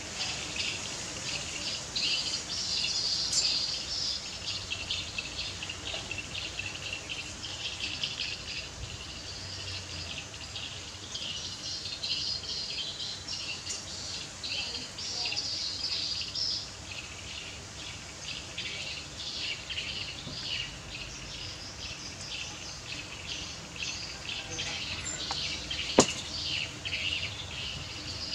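Continuous high-pitched chirping of outdoor wildlife, many short chirps overlapping, with a single sharp click about 26 seconds in.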